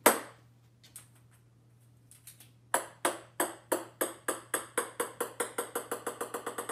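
Orange ping-pong ball bouncing on a hard wooden floor: a sharp knock at the start, a few light taps, then from nearly three seconds in a steady run of bounces, each ringing briefly, coming faster and quieter as the ball settles.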